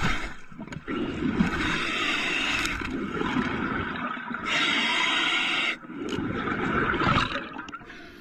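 A diver breathing underwater through a compressor-fed regulator, with exhaled air bubbling out. The rushing noise comes in two long surges, about two seconds in and again about four and a half seconds in, and grows quieter near the end.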